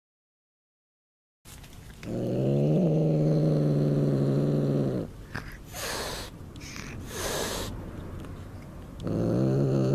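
Domestic cat growling, a low, steady growl held for about three seconds starting some two seconds in, a warning as it guards a bird it has caught. Two short breathy noises follow, and the growl starts again near the end.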